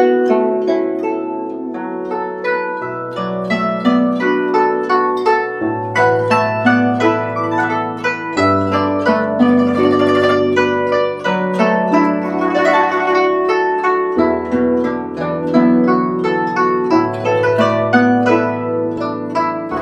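Guzheng playing a flowing melody of quick plucked notes over low bass notes that change every few seconds.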